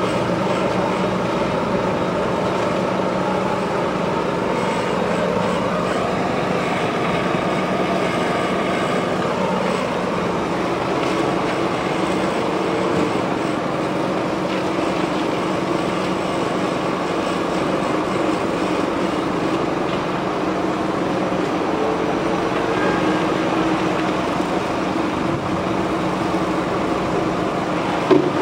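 Walk-behind concrete laser screed machine's engine running steadily as the machine levels wet concrete.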